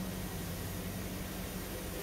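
Steady low hum over a constant hiss from the running equipment of a municipal well house, around its large steel well pipes.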